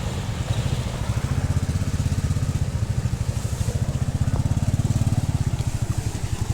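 Motorcycle engine running steadily while riding, a rapid low pulsing of its firing strokes, with a haze of wind and road noise above it.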